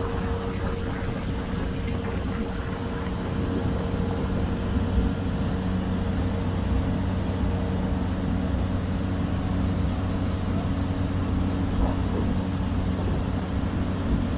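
Cessna 208B Grand Caravan's single turboprop engine and propeller heard inside the cabin: a steady drone with several constant low tones and a faint high whine.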